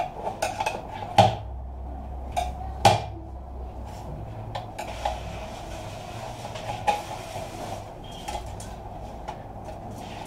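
Sheet-metal casing of a PC power supply being handled and turned on a workbench, with a screwdriver against it: scattered clicks and knocks, two louder knocks in the first three seconds, over a steady background hum.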